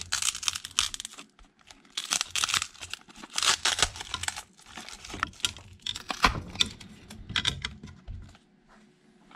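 A hobby knife cutting the yellow wrapping of a lithium battery's inner cell pack while the wrap is torn and peeled back, in irregular ripping and scraping bursts with sharp clicks. It stops about a second before the end.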